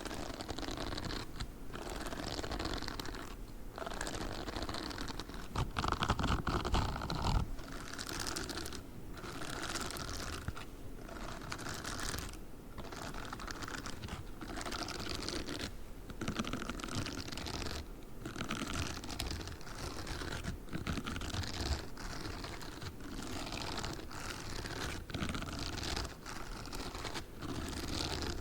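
Spiked rubber gloves rubbing and scratching in repeated strokes, with short pauses between them and a louder burst of rubbing about six seconds in.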